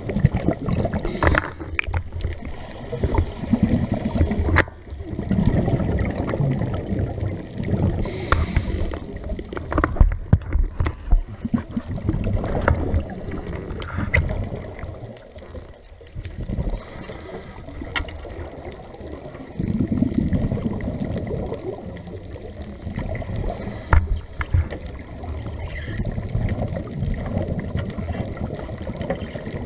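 Scuba diver's breathing heard underwater: regulator exhaust bubbles rumbling and gurgling in surges every few seconds, with scattered small clicks.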